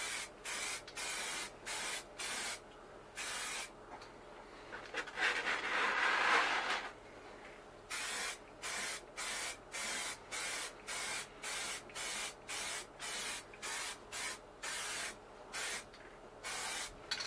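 Aerosol spray paint can hissing in quick short bursts, about two a second, laying light coats on a plastic model truck cab. A few seconds in the spraying stops and a louder rough rustling follows, then the short bursts start again.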